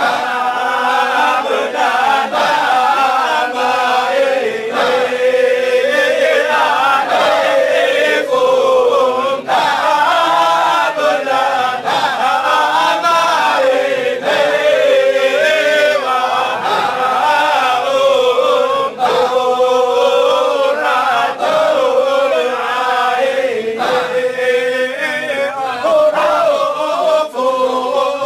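A group of men chanting Shadhili Sufi dhikr together in unison. The chant is continuous and melodic, with brief breaks now and then.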